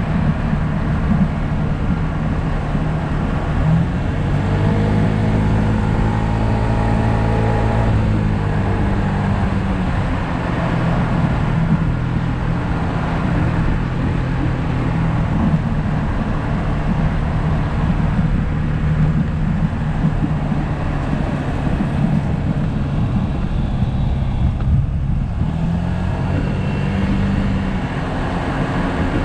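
Yamaha SMax's 155 cc single-cylinder scooter engine running steadily under way, with wind rushing and buffeting over the microphone. Between about four and eight seconds in, the engine note grows stronger and rises a little before settling again.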